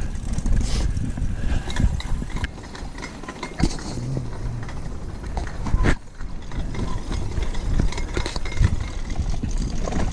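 Mountain bike being ridden over a rough track: tyres rolling over gravel with frequent rattles and clicks from the bike, over a low uneven rumble.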